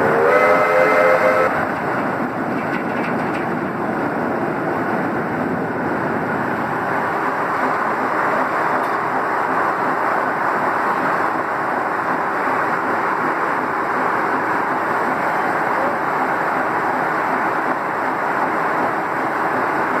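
A steam train's whistle blows in one short blast of about a second and a half at the start. It is followed by the steady, dense running noise of a steam-powered sawmill's machinery.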